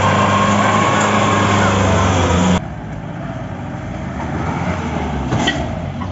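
Mahindra 4x4 jeep engine held at high, steady revs as the jeep pulls through a deep mud rut under load. About two and a half seconds in the sound cuts to a quieter, rougher engine note, with a brief sharp knock near the end.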